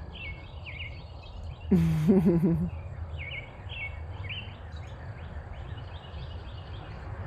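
Small birds chirping over and over in short quick calls, over a steady high insect trill and a low background rumble. A brief voice sounds about two seconds in.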